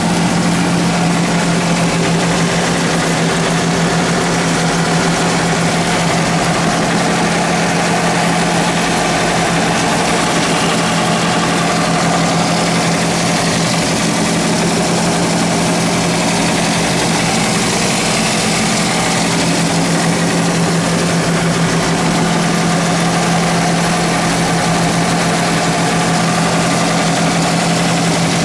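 Toyota bB's drivetrain running in Drive on a lift with only the left front wheel spinning: a steady hum over the engine idle. Some of it comes from the wheel hub bearing, but most comes from inside the transmission case, which the owner takes for the differential's left side bearing.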